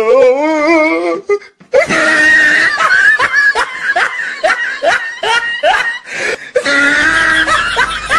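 Loud laughter in rapid repeated ha-ha pulses, broken by a short pause about a second and a half in.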